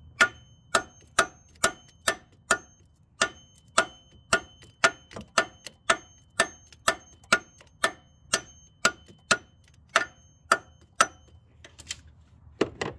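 Claw hammer striking a stuck steel freeze plug in a Jeep 4.0 engine block, metal on metal, about two sharp blows a second with a faint ring after each, to knock the plug loose. The blows stop about 11 seconds in, and two more come near the end.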